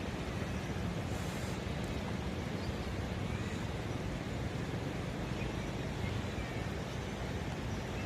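Steady rush of high floodwater pouring through the fully opened gates of a river weir, an even unbroken noise.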